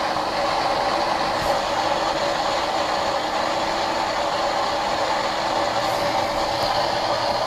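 Steady static-like rushing noise, even in level, with no distinct events.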